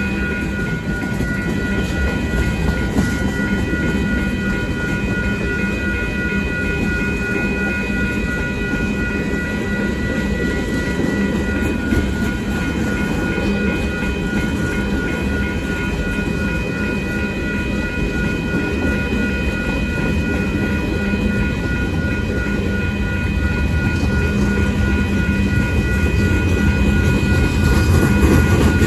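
Union Pacific manifest freight train cars rolling past, a steady rumble with some clickety-clack of wheels on rail joints. Several steady high-pitched ringing tones are held over it.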